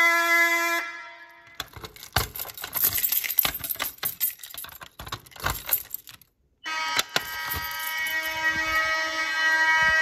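Fire alarm horn sounding steadily, cutting off about a second in. Then a bunch of keys jangling and clinking at a Simplex manual pull station for several seconds. The alarm horn sounds steadily again from about seven seconds in.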